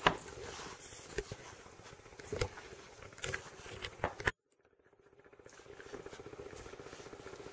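Hands mixing pastry dough in a stainless steel bowl: soft rubbing with scattered light knocks against the bowl. About four seconds in the sound drops out briefly, and a faint steady hum follows.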